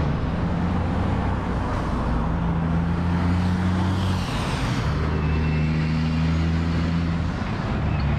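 A motor vehicle engine running close by amid road traffic noise. Its low hum steps between a few steady pitches over a constant hiss.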